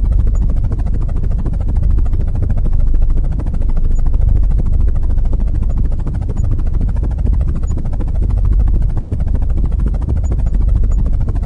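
A small electric motor spinning the rotor of a homemade matchbox helicopter, running steadily with a heavy low rumble of air buffeting the microphone, dipping briefly about nine seconds in.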